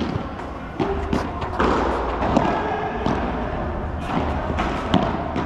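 Padel rally: irregular sharp knocks of the ball off rackets and the court, one every half second to a second, with one loud knock near the end, over a steady low hum.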